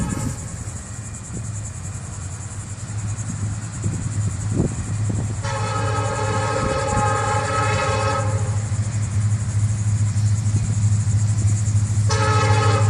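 Diesel freight locomotive horn sounding a long blast about five seconds in, lasting nearly three seconds, and starting another near the end, over the steady low rumble of the approaching train, which grows louder.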